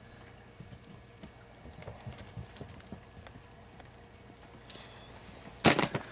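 Cats' paws padding and thumping on carpet as they scamper and pounce, light scattered taps through the first half. Near the end comes one sudden loud scuffle or thump lasting a fraction of a second.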